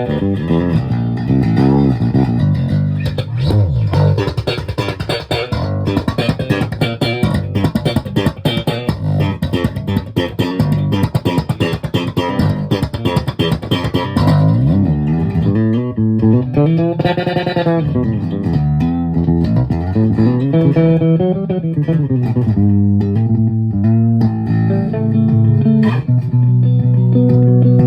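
Ibanez Ergodyne EDB600 four-string electric bass with Ernie Ball Extra Slinky roundwound strings, played through an Acoustic 100-watt bass amp. A fast, busy run of plucked notes for about the first half, then notes sliding up and down the neck, ending on a held low note.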